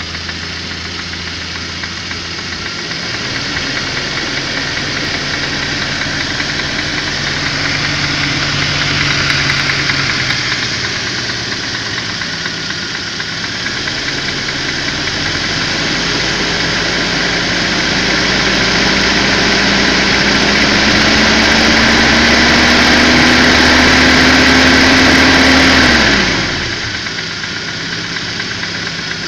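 ZMZ-405 inline-four petrol engine running with a knock that the owner puts down to a worn piston pin in the connecting rod, heard during warm-up as the revs fall. The revs go up and down, then climb slowly for about ten seconds and drop back to idle near the end.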